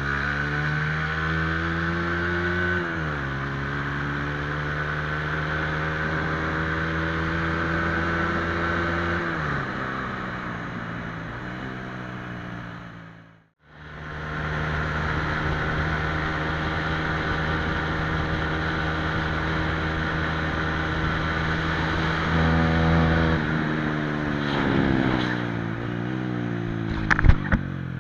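Honda CBR125R single-cylinder four-stroke engine running through an aftermarket replica Akrapovic exhaust while riding. The pitch climbs and drops sharply twice in the first half as the bike shifts up, cuts out briefly near the middle, then holds steady before falling near the end as the throttle closes. A few sharp clicks come just before the end.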